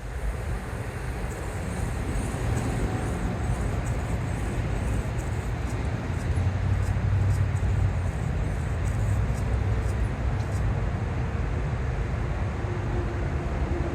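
A vehicle engine running steadily, a low rumble, with faint regular ticking over the first ten seconds or so.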